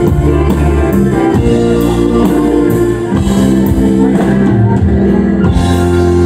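Live country music: a strummed acoustic guitar with the band over a steady beat, settling into a held final chord about five and a half seconds in.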